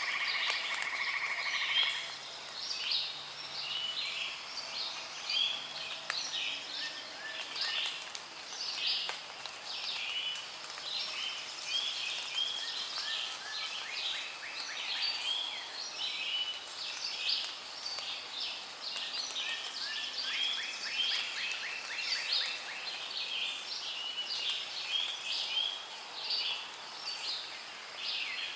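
A dense chorus of many birds chirping and calling over one another without pause. A steady buzzing trill sounds over them for the first two seconds.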